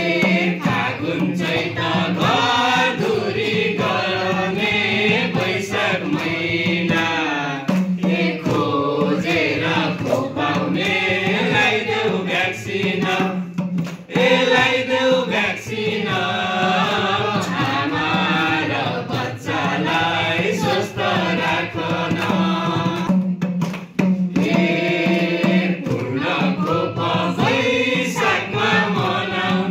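A mixed group of men and a woman singing a Nepali vaccine-awareness song together into microphones, reading the lyrics, over a steady percussion beat.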